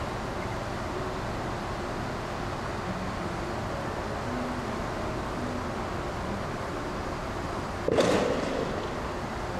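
Steady wind noise on the microphone out on an open ship deck, with a sudden short, louder noise near the end.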